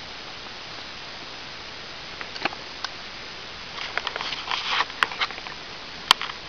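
Handling noise: a steady hiss with scattered clicks and rustles as the camera is moved, a dense patch of crackling a little after the middle and one sharp click near the end.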